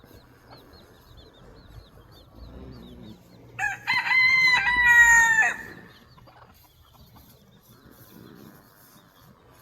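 A rooster crowing once, a loud call of about two seconds that starts a little past a third of the way in, over faint high chirps.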